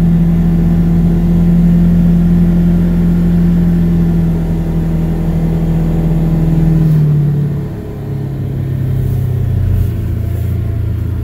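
A vehicle's engine running steadily as it drives along, its note dropping lower and quieter about seven seconds in as it eases off.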